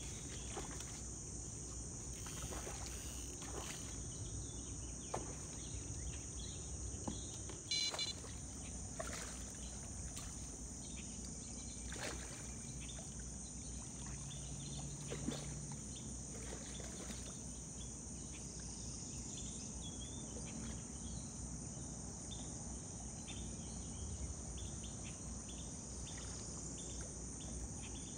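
Steady high chorus of insects, crickets, over a low steady rumble, with a few short knocks and splashes scattered through it, the sharpest about eight seconds in.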